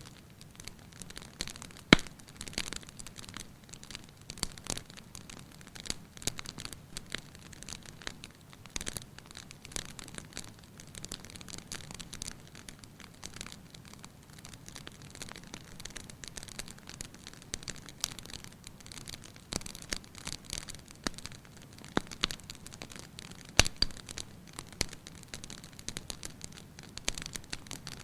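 Wood fire in a fireplace crackling, with irregular sharp pops and snaps over a soft hiss; a few pops stand out louder, one about two seconds in.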